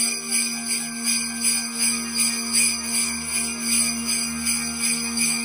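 Background music led by sleigh bells shaken in a steady rhythm, about four shakes a second, over a held low note.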